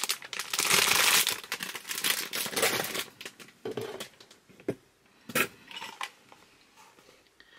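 Clear plastic bag around a plush toy crinkling as it is handled, loudest in the first three seconds. It then thins to scattered clicks, with two sharp knocks about five seconds in.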